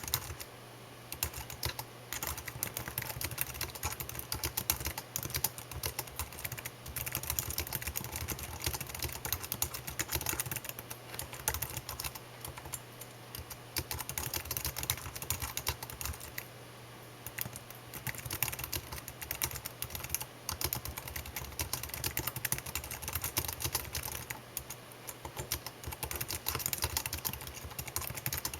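Continuous typing on a computer keyboard: a dense run of key clicks, broken by a few short pauses.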